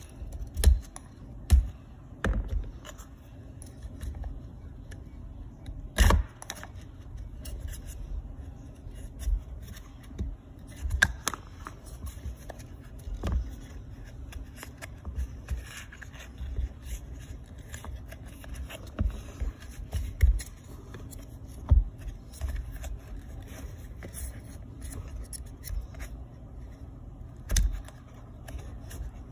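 Plastic recoil starter housing and rope pulley of a Stihl trimmer handled and turned by hand, giving irregular clicks, knocks and scrapes, with a louder knock about six seconds in and another near the end. The pulley is being wound one more turn to add spring tension to the starter rope.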